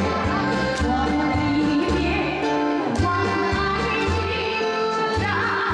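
A woman singing a Korean trot song into a handheld microphone over an instrumental accompaniment with a steady bass beat and guitar.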